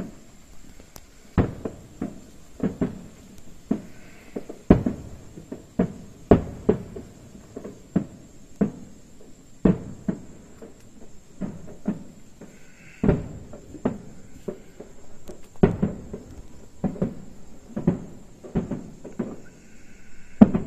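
Aerial firework shells bursting in a steady barrage: a continuing series of sharp bangs, about one or two a second, each with a short echoing tail.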